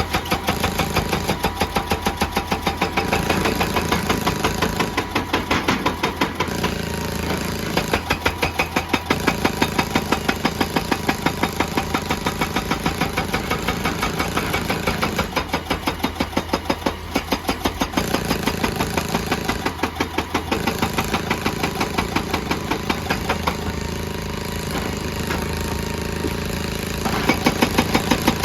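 Excavator-mounted hydraulic rock breaker hammering rock in a rapid, steady train of blows over the machine's running diesel engine. The blows ease off for a few seconds late on, then resume strongly near the end.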